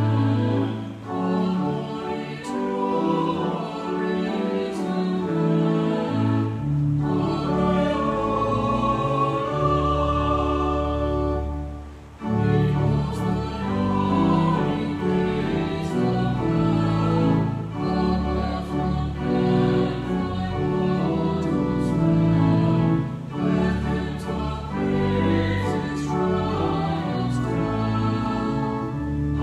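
A small choir of mixed voices singing with organ accompaniment. A deep organ bass line comes in about six and a half seconds in, and the music breaks briefly about twelve seconds in before going on.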